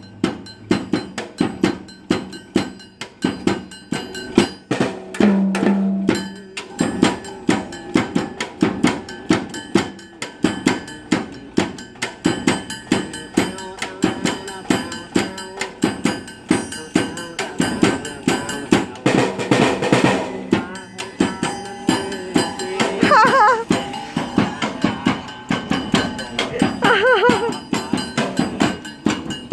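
New drums being played in a fast, steady run of strokes, tried out in a sound check, with a louder crash about two-thirds of the way through.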